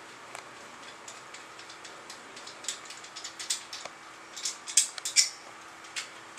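Irregular light clicks and metallic clinks of doorknob lockset parts and screws being handled, with a few sharper clinks together about two-thirds of the way through.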